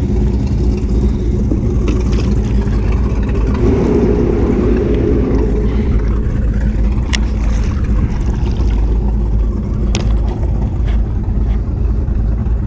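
A boat motor running with a steady low rumble. Two sharp knocks come through it, about seven and ten seconds in.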